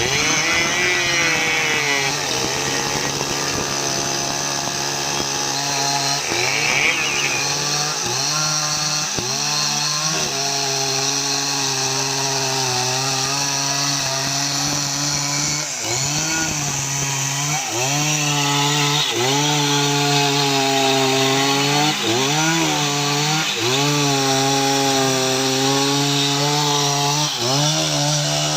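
Jonsered 2095 Turbo chainsaw's 93.6 cc two-stroke engine running at full throttle while cutting teak wood. Its pitch sags and recovers over and over, every second or two, as the bar is worked through the cut.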